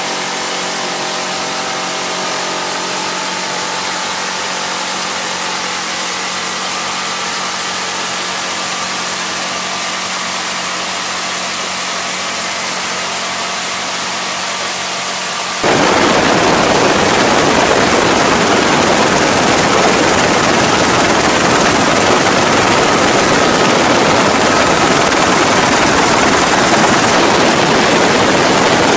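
GAU-17 minigun firing from the door of a UH-1Y Venom helicopter, over the helicopter's steady engine and rotor drone. About halfway through the sound cuts abruptly to a louder, rushing wind-and-rotor noise.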